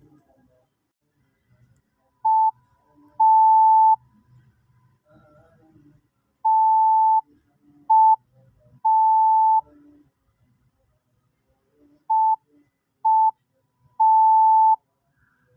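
Morse code sent slowly as a single steady beep tone, short and long pulses in three groups: dot-dash, dash-dot-dash, dot-dot-dash, reading A, K, U.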